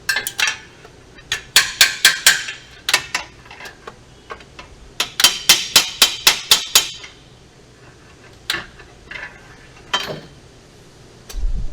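A steel 3/8-inch socket extension tapping on the starter solenoid of a Genesis G70 in quick bursts of sharp metal strikes, the longest a run of about nine taps, then a few single taps. The tapping is meant to free a sticking starter that only clicks and won't crank.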